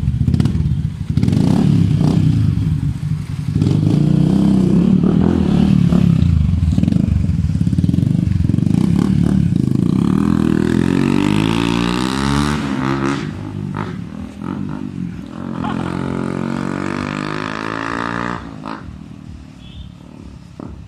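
Yamaha Sniper 150's single-cylinder four-stroke engine running through an aftermarket Akrapovic exhaust, loud and revving, with its pitch rising and falling. It fades over the last few seconds as the bike pulls away.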